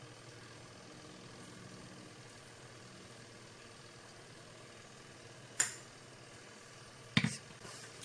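Quiet handling of a twin-tub washing machine's spin-dryer motor, with two sharp knocks, about five and a half and seven seconds in, as its metal housing is handled and set down on a hard floor.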